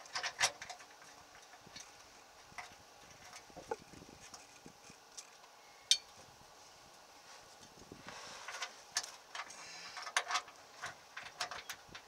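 Scattered metallic clicks and clinks as a new rear shock absorber is fitted to its mounts under a Chevy S10 pickup. There is one sharp click about six seconds in, and the clicking comes thicker in the last four seconds.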